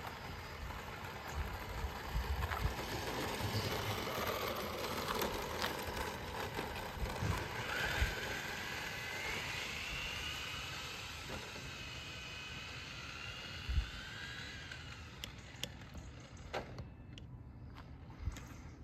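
Small electric motor and gears of a radio-controlled car (a Tamiya MF-01X with a 15-turn brushed motor) whining. The whine rises in pitch as the car speeds up, holds, then fades, over a steady background hiss with a few low knocks.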